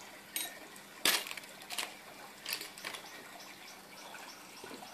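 A few light clicks and knocks of small objects being handled, the loudest about a second in.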